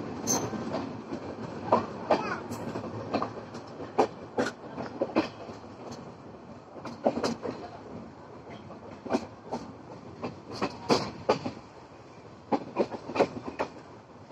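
Railway coach rolling along the track, heard from inside: a steady rumble with irregular sharp clacks and knocks of the wheels and coach fittings over the rails.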